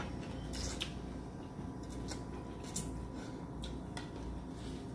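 Ramen noodles being slurped and chewed: several short slurps and mouth smacks, over a low steady room hum.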